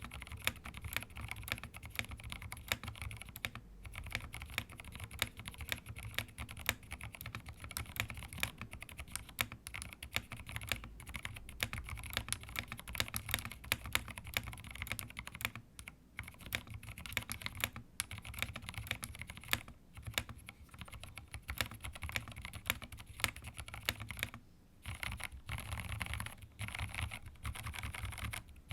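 Fast typing on an SW Eave65 mechanical keyboard with an all-plastic case, Franken semi-silent switches and KKB keycaps: a dense, continuous run of keystrokes, with brief pauses about 16 and 24 seconds in.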